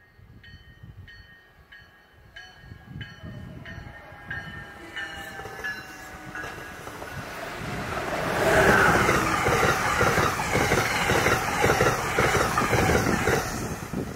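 Passenger train passing at speed: a bell rings in quick, even strokes as it approaches, then about halfway through the train rushes past loudly with a rhythmic clatter of wheels.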